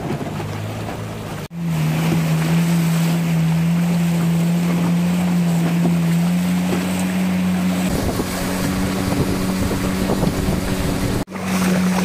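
Outboard motor of a wooden river longboat running steadily under way, over the rush of river water and wind on the microphone. Its pitch rises a little about halfway, and the sound cuts out abruptly for a moment about a second and a half in and again near the end.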